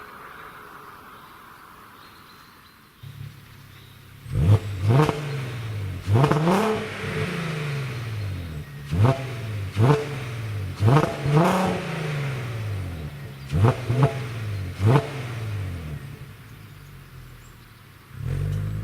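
Audi TT 3.2's VR6 engine with a sport exhaust, coming in about three seconds in and then revved again and again: each rev rises sharply and falls back slowly to a steady idle, about ten times, some in quick pairs.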